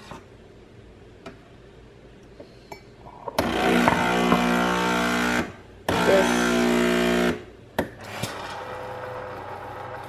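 Breville Nespresso coffee machine's automatic steam purge: the pump buzzes and steam hisses out of the milk-frothing wand in two sharp blasts, about two seconds and then a second and a half long. This is the wand cleaning itself after frothing milk.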